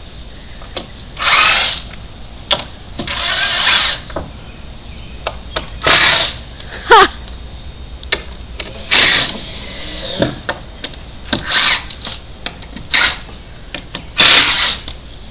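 Power drill running in short bursts of a second or less, about eight times, working screws in wooden fence boards; some bursts slide in pitch as the screw seats or loosens.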